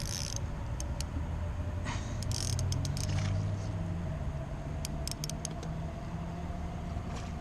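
A motor running steadily with a low hum, with scattered light clicks over it.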